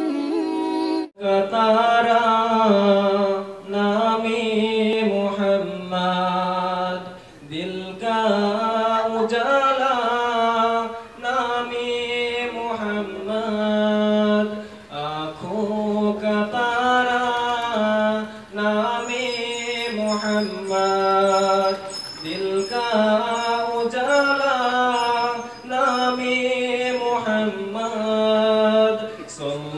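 A young man's solo voice singing an Urdu ghazal into a microphone without instruments, in long held, wavering phrases with short breaks between them. A short music sting from a logo intro plays in the first second.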